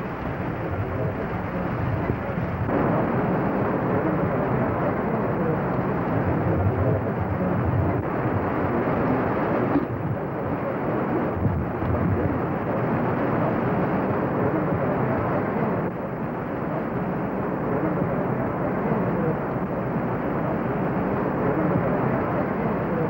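Heavy downpour with wind: a loud, steady rushing noise that shifts a little in level now and then.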